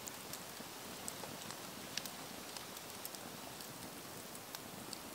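Campfire dying down: a faint steady hiss with scattered sharp crackles and pops.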